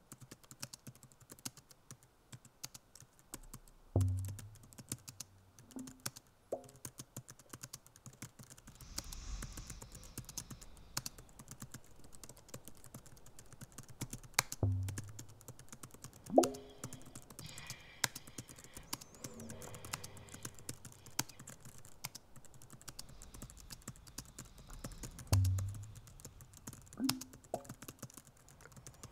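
Sound-design soundscape of many small irregular clicks and ticks, broken three times by a deep low thud, about ten seconds apart.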